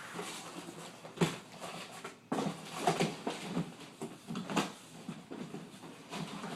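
Cardboard box and packaging being handled: irregular rustles, scrapes and knocks, the sharpest about a second in and around the middle.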